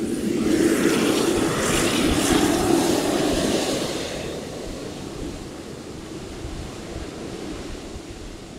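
Engines of a Boeing 747-8F freighter (GEnx turbofans) running as the jet taxis close past, a rushing jet noise loudest over the first few seconds and then fading as it moves away.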